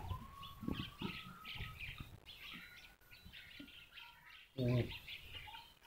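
Small birds chirping over and over, with a short low call about three-quarters of the way through.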